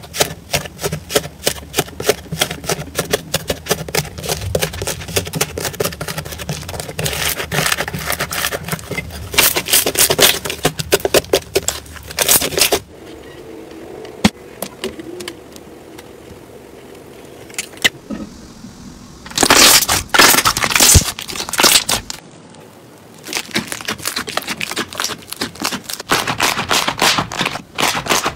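Hands working slime. For about the first twelve seconds, the hardened crust of an 'iceberg' slime crackles with dense, crisp cracks as fingers break into it. Softer squishing follows for several seconds, then more bursts of crackling and popping.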